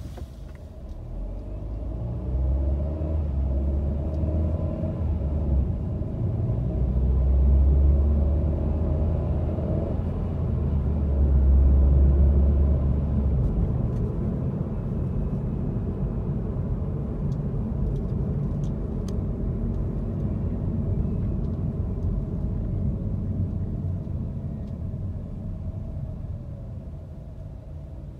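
A car's engine and road noise heard from inside the cabin: a deep rumble that builds as the car gets moving, is loudest in the first half, and eases off near the end as the car slows to a stop.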